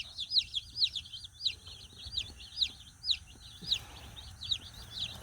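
Cornish Cross meat chicks peeping: a rapid, continuous run of short, high, arching cheeps, about four or five a second.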